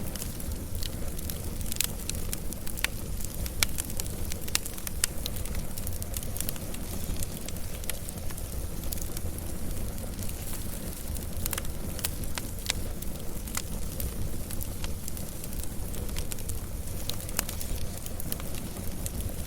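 Wood fire burning with a steady low rumble and frequent sharp crackles and pops, busiest in the first few seconds and again about halfway through.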